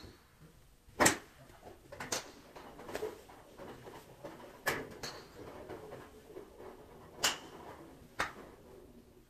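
Sharp cracks of golf clubs striking balls at a driving range, about five separate shots, the loudest a little after a second in, with a faint murmur between them.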